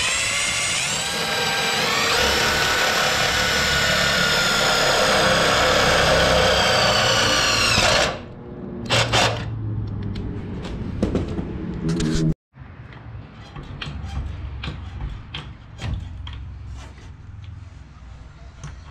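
Power drill with a step drill bit cutting through sheet-metal core support, the motor whining and rising in pitch in the first two seconds, then stopping abruptly about eight seconds in. Two short blips of the drill follow, then scattered light clicks and knocks.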